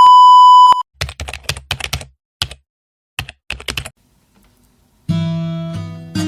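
A loud steady electronic beep lasting under a second, then about three seconds of irregular key clicks from typing on a computer keyboard. Acoustic guitar music comes in about five seconds in.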